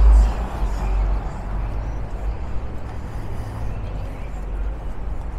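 City street traffic noise: a vehicle passing close by fades away in the first second or so, leaving a steady low rumble of traffic.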